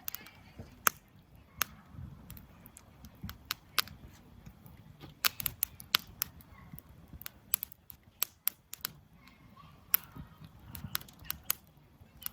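Campfire crackling, with sharp irregular pops and snaps of burning wood, roughly a couple a second.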